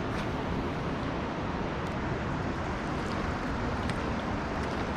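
Steady rush of river water flowing below a dam spillway.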